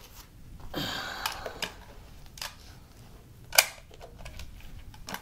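Metallic clicks and clacks of an AR-15 carbine's action and magazine being handled: a short rasp about a second in, then several sharp clicks, the loudest at about three and a half seconds.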